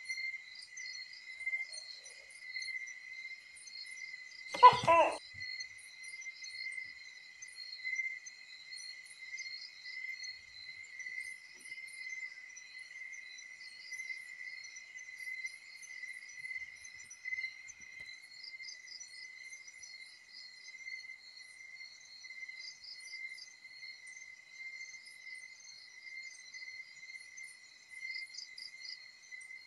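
A chorus of night insects, crickets (kuliglig), with a steady high trill and many quick chirps above it throughout. About five seconds in, one short, much louder sound with a wavering pitch cuts across it.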